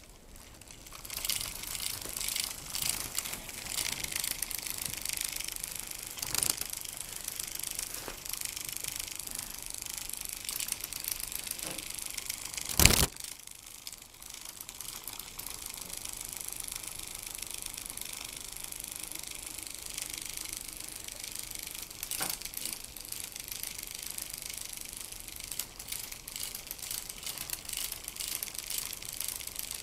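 Motorised butterfly cat toy running: a rapid, fine clicking and rattling from its mechanism and fluttering wings, starting about a second in. One loud knock about halfway through.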